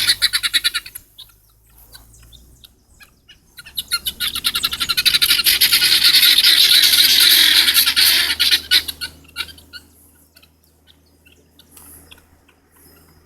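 A flock of helmeted guineafowl calling: rapid, harsh, rattling cackles repeated many times a second. A brief burst at the start gives way to a lull, then a loud chorus builds about four seconds in and holds for about five seconds before thinning to scattered calls.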